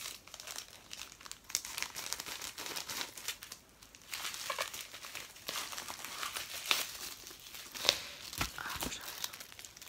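Packaging of a small mail parcel crinkling and tearing as it is opened by hand, an irregular crackle with a few sharper snaps near the end.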